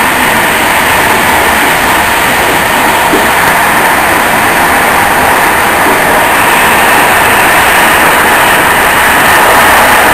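InterCity passenger train running at speed, heard from inside its last carriage: a steady running noise that grows a little louder toward the end.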